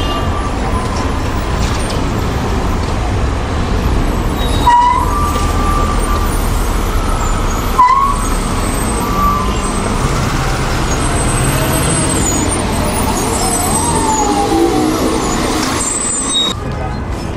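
Busy city street traffic: engines and tyres of queued and passing cars and a large public-transport vehicle, with a few brief high squeaks about five and eight seconds in.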